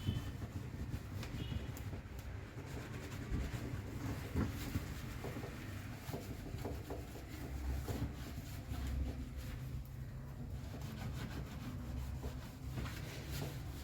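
Hand scrubbing of a dirty refrigerator surface: repeated rubbing and scraping with scattered light knocks.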